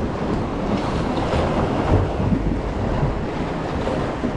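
Ocean surf washing against rocks with wind buffeting the microphone, and a couple of brief louder bumps near the middle.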